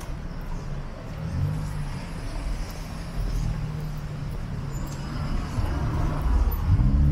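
City street traffic: a motor vehicle's engine running close by, a low steady hum that grows louder toward the end.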